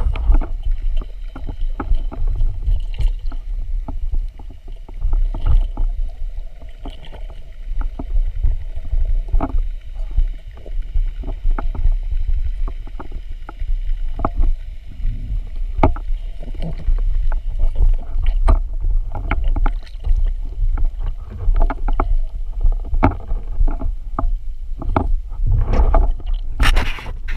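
Underwater sound through a speargun-mounted camera's housing: a steady low water rumble with frequent short clicks and knocks as the speargun, shaft and line are handled, and a quick run of sharper knocks near the end.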